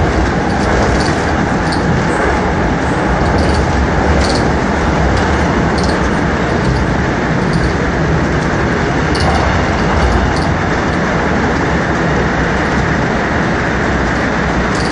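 Airport Railroad electric train running at speed through a tunnel, heard from inside the car: a steady rumble and roar of wheels on rail, with light ticks now and then.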